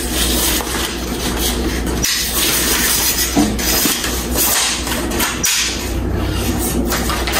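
Continuous rustling and scraping handling noise from an aluminium camera tripod as its legs are adjusted for height, with a few light knocks.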